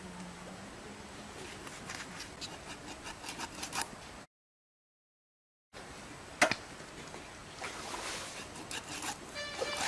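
Raw carp being cut on an upright bonti blade by hand: a run of small scraping cuts and sharp clicks as the blade goes through flesh and bone. The sound drops out completely for about a second and a half a little past four seconds in, and a single sharp click comes about six and a half seconds in.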